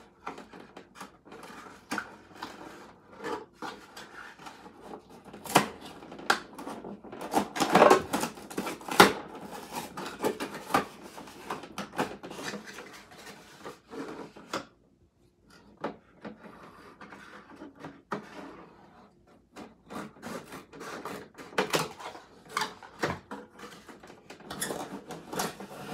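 Hands wrestling a cardboard packing insert out of a plastic L.O.L. Surprise O.M.G. Glamper toy camper: irregular knocks, clicks, scraping and rustling of cardboard against the hollow plastic shell, busiest about a third of the way in, with a short lull just past the middle.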